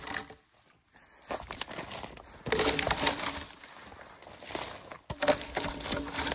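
Dry twigs and brush crackling and crunching as a felled log is rolled downhill over forest debris, with footsteps through the brush. The crackling comes in two spells, after a short quiet pause about a second in.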